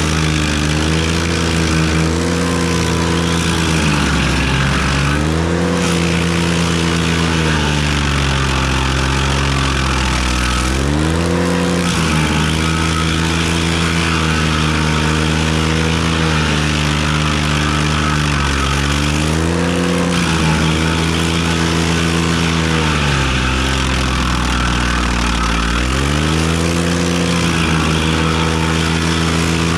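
Ventrac compact tractor engine running hard at high revs. About four times its pitch sags and climbs back as the engine is loaded down, typical of the KC220 stump grinder's cutter wheel biting into a stump.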